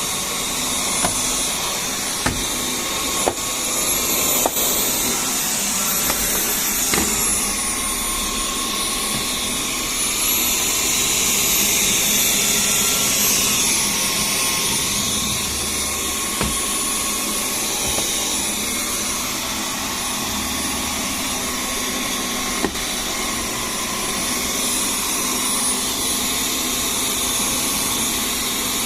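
Dyson V10 cordless stick vacuum running steadily with a high motor whine. Twice its pitch steps up for a few seconds and then drops back, as the power is raised, with a few small clicks of debris or the head knocking.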